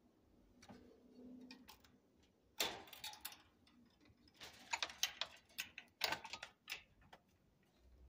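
Irregular clusters of short, light clicks and knocks, the loudest a little over halfway through.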